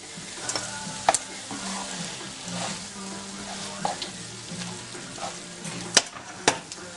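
Pasta and sauce sizzling in a frying pan as they are tossed with tongs, with sharp clicks of the tongs against the pan, the loudest about a second in and twice near the end.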